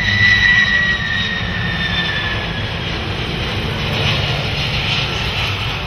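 Boeing 767 airliner making a low pass, its twin turbofan engines whining over a steady rumble. The high whine falls slowly in pitch over the first couple of seconds as the jet goes by.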